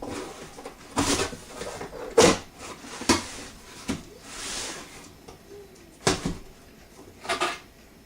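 Cardboard shipping box being cut open and its flaps pulled apart: about six sharp scraping and tearing strokes, the loudest a couple of seconds in, with a softer hiss in the middle.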